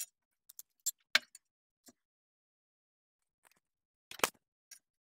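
Sparse metal clicks and knocks of a steel F-clamp and a strengthening plate being handled and set onto a car's front subframe. The loudest knocks come about a second in and about four seconds in.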